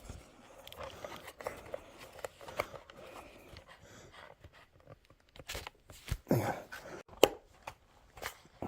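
Small plastic handling clicks and rubbing as a magnetic snap-on prescription lens insert is fitted over an Oculus Quest 2 lens, then a sharp click about seven seconds in as the insert pops into place.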